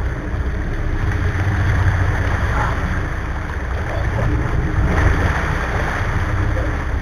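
Steady low rumble of a sportfishing boat's engines running, with water rushing along the hull.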